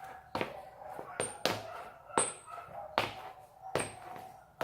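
Basketball dribbled on a hard court: a sharp thump about every three-quarters of a second, with a few short, high squeaks of sneaker soles.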